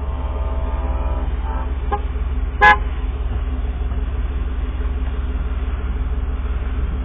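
An approaching train's horn sounds a chord of several tones that fades out in the first second and a half, then a single very brief, sharp horn toot, the loudest sound, about two and a half seconds in. A steady low rumble runs underneath.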